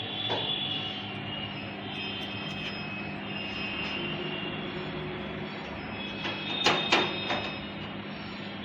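A screwdriver driving screws into a desktop computer case, with a few sharp metal clicks about seven seconds in, over a steady background drone.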